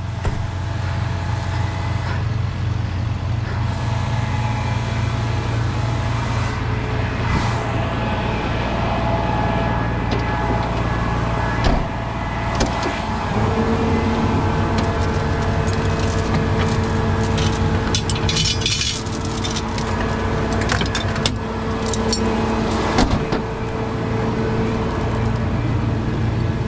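A Peterbilt 337 tow truck's diesel engine runs steadily at idle, with a steadier higher hum joining about halfway through. In the second half, heavy tow chains clink and rattle as one is pulled from the truck's side chain locker.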